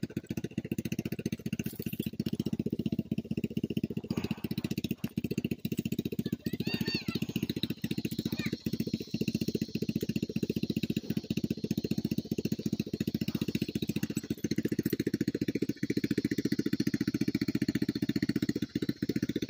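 Four-wheeler (ATV) engine idling steadily, a low, even, rapidly pulsing run.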